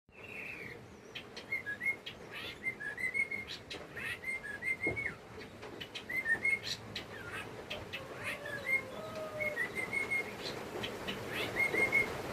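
A young bird giving short whistled chirps in little groups of two to four notes, repeated every second or so, with scattered faint clicks between them.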